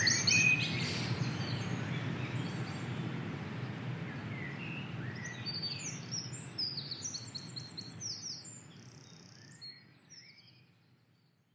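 Dawn chorus of songbirds: several birds singing high, quick phrases and trills over a low, steady rumble of background noise. The whole recording fades out, and the birds fall silent near the end.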